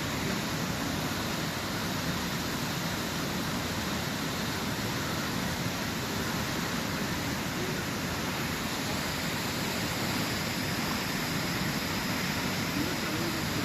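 Steady rush of falling water from a waterfall, an even unbroken roar.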